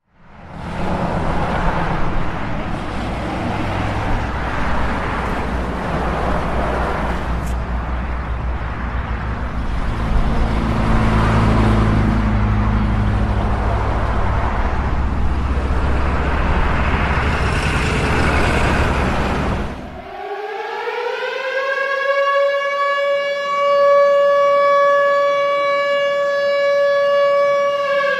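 A steady low rumble and hiss for about twenty seconds. Then a civil defense rocket-warning siren starts and rises in pitch into a steady, loud wail.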